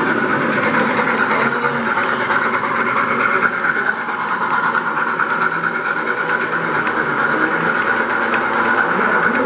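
O scale model steam locomotive and its train rolling past on two-rail track, wheels running steadily on the rails with light clicking, over background chatter of people talking.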